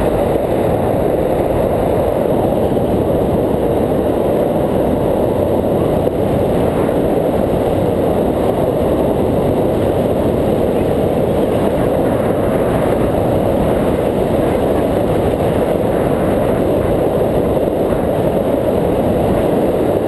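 Steady wind rush on the microphone of a camera carried by a tandem paraglider climbing in flight, a dull buffeting roar with no engine tone in it.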